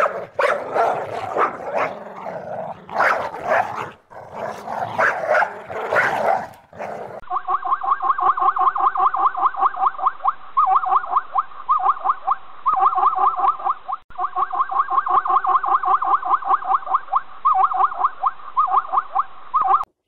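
A Pomeranian barking, yipping and whining in short irregular bursts for about the first seven seconds. Then it cuts to a fast, evenly repeating run of pitched calls, with a few short breaks: zebras calling.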